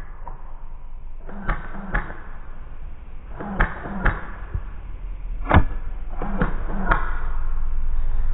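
A run of sharp snaps from airsoft guns firing, several in pairs about half a second apart, the loudest about five and a half seconds in, over a steady low rumble.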